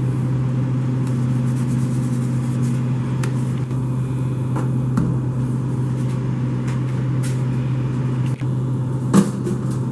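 Steady low mechanical hum running at an even level throughout, with a brief knock about nine seconds in.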